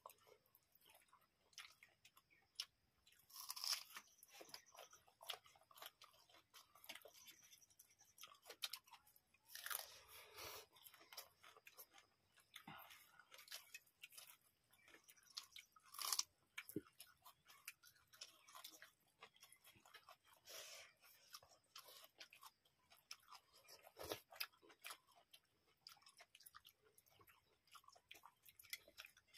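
Faint close-up eating sounds of rice, curry and raw onion being eaten by hand: chewing and mouth noises with many small clicks of fingers against steel plates, and a few louder crunches from bites of raw onion.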